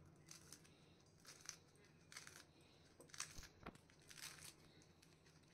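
Faint, crisp cuts of a knife slicing through rolled betel leaves, a dozen or so soft snips at an uneven pace.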